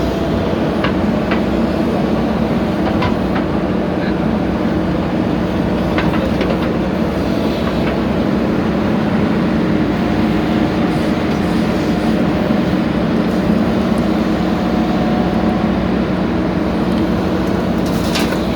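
Backhoe loader's diesel engine running steadily under work, with a few light knocks.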